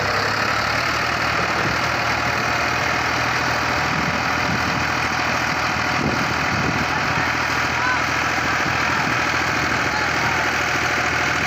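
Tractor diesel engine running steadily at idle close by, with faint voices of people calling in the background.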